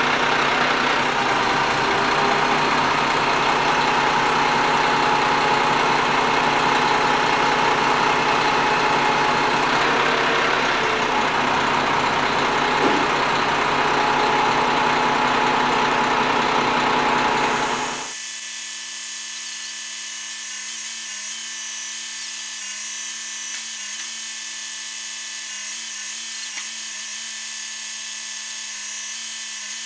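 Diesel engine of a crane truck running steadily while its hydraulic boom lifts a milling machine onto the flatbed. About 18 seconds in, the sound drops abruptly to a quieter, thinner steady hum with no low rumble.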